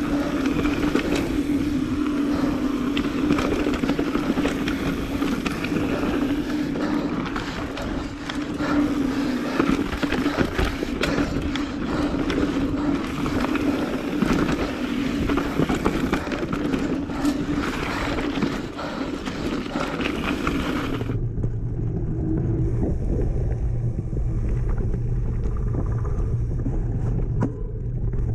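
Lapierre Zesty full-suspension mountain bike riding a rough dirt trail: tyre rolling noise with frequent rattles and knocks from the bike over the ground, and a steady hum underneath. About three-quarters of the way through the sound turns abruptly duller, with a deeper hum.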